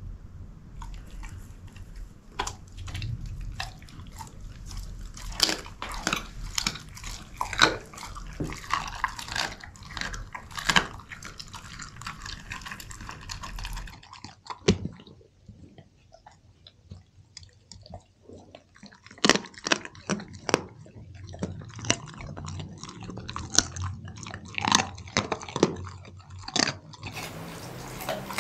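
Belgian Shepherd (Groenendael) dog eating wet raw meat and egg: chewing, with irregular sharp clicks of its teeth, a lull about halfway through, then more clicking chews.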